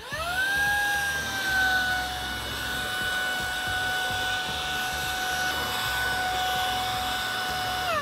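Vax Blade 2 Max cordless stick vacuum starting up with a rising whine, then running at a steady high whine over a rushing airflow noise, with its brush bar turning in carpet mode. Near the end the whine drops in pitch and dies away.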